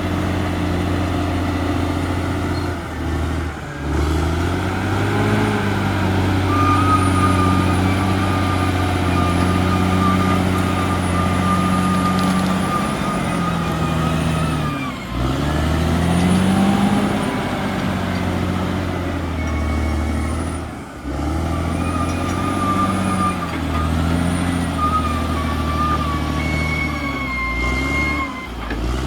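Caterpillar D6R XL crawler bulldozer's diesel engine running under load, its pitch sagging and rising again several times, with a thin high whine over it.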